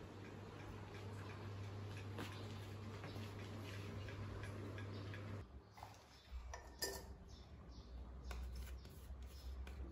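Faint steady hum of room tone. From about five seconds in come small clicks and knocks as a toothbrush and toothpaste are handled at a ceramic washbasin, the sharpest click a little before seven seconds.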